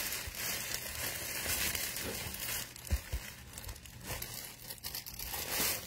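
Clear plastic packaging sleeve crinkling and rustling as a canvas print is pulled out of it, with a couple of low knocks about three seconds in as the canvas is handled.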